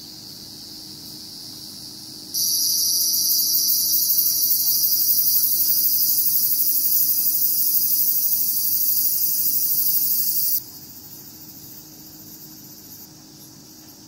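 A cicada's loud, steady, high buzzing song, starting abruptly about two seconds in and cutting off about ten seconds in, over fainter insect chirring that goes on throughout.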